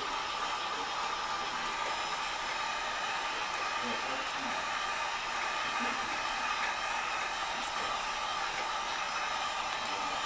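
Wagner electric heat gun blowing steadily, a constant rush of air with a steady whine, as it heats shrink-wrap film to tighten it around a game case.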